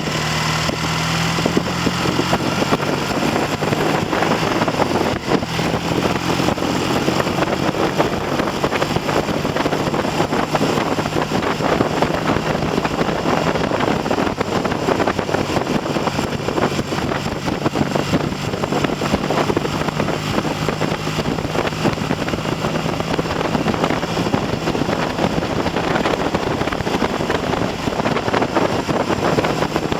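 Triumph TR6 650 cc parallel-twin engine running on the road, its note coming and going and shifting in pitch with throttle and gear changes. Heavy wind buffeting on the microphone largely covers it. The engine has a freshly rebuilt top end and is being run in at mid-range revs.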